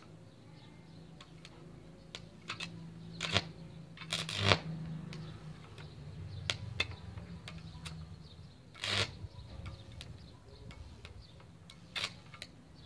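Electric welding arc from a homemade salt-water welder striking and breaking at the electrode tip on a steel plate: irregular sharp cracks and snaps, the loudest about four and a half and nine seconds in, over a low steady hum. The arc sputters rather than holding steady, which the maker puts down to the salt not yet being fully dissolved in the water.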